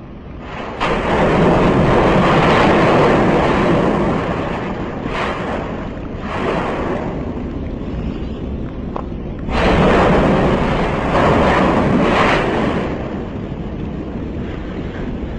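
Deep rushing roar of the Fagradalsfjall eruption's fountaining vent, swelling sharply about a second in, easing off, then surging again past the middle.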